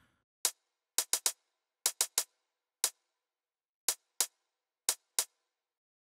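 Hi-hat sample from a Big Room electronic drum kit sounding about a dozen times, short crisp ticks at an uneven pace as hi-hat steps are tapped into a step sequencer.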